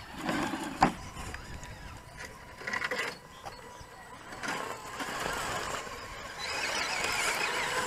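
Small electric motors and gearboxes of 1/10-scale RC rock crawlers whining as they creep over rock, with a sharp click about a second in. The whine gets louder and wavers in pitch near the end.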